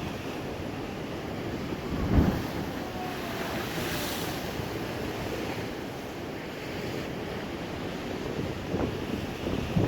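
Rough sea surging and breaking in a strong wind, with gusts buffeting the microphone; one loud low buffet about two seconds in, and a hissing wash of surf swelling around the middle.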